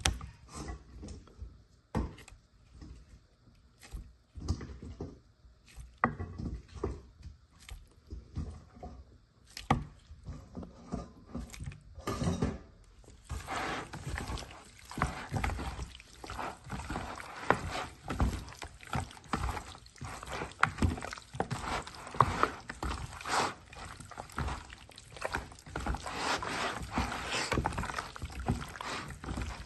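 Gloved hands squishing and turning raw chicken pieces in a thick spiced tandoori marinade, a wet squelching and slapping. It is scattered at first and becomes continuous a little under halfway through as the mixing speeds up.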